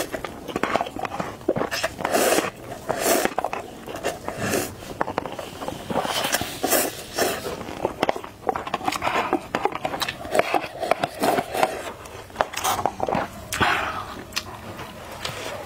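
Close-miked slurping and chewing of instant noodles: irregular wet slurps, smacks and mouth clicks, one after another.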